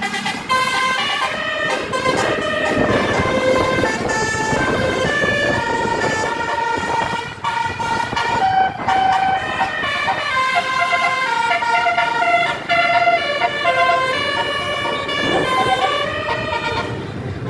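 Bus telolet horns: a set of musical air horns playing a tune of held notes that change in steps, with bus engines running underneath.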